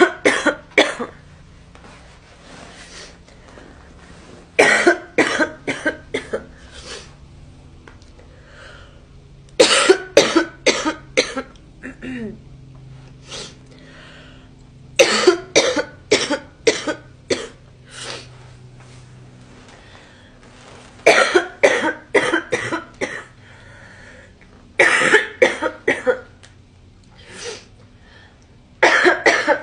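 A girl coughing in repeated fits: seven bouts of several quick coughs each, coming about every five seconds.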